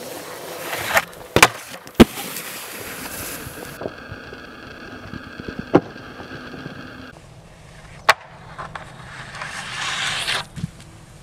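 Snowskate deck sliding and scraping over packed snow, with several sharp clacks as the board pops and lands on stairs, ledges and rails.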